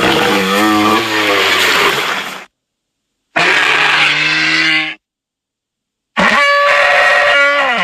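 Three designed Triceratops calls, deep bellowing cries split by dead silence. The first lasts about two and a half seconds, the second is shorter, and the third, starting a little after six seconds in, bends down in pitch near the end.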